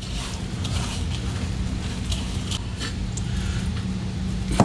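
Egg being mixed into breadcrumbs and spices in a bowl: scattered faint scrapes and taps, with a sharp knock near the end, over a steady low hum.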